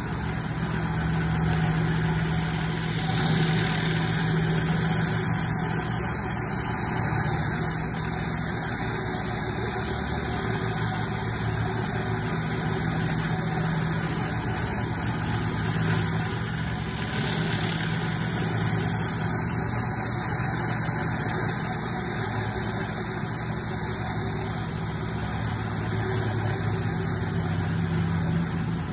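Pressure washer running steadily: a constant engine hum under the hiss of water jets from a flat surface cleaner passing over wet limestone paving.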